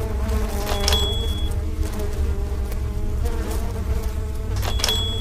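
Low, steady buzzing drone under the closing credits, with a typewriter-style keystroke clack and bell ding about a second in and again near the end.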